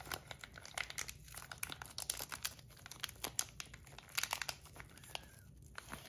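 Clear plastic vacuum-seal bag crinkling with many irregular sharp crackles as it is pulled open by hand to free the metal fidget toy inside.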